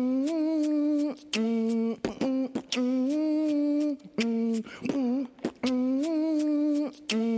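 Music: the intro of a hip-hop track, a wordless vocal-like melody of held, wavering notes, about one a second, with no beat yet.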